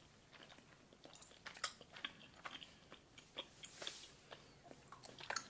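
Faint close-up chewing of a soft berry-and-cream candy, with irregular small wet clicks and smacks of the mouth.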